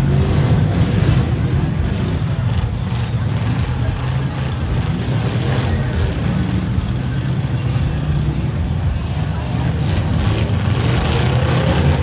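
V8 engines of demolition derby cars running loudly together, with a few knocks.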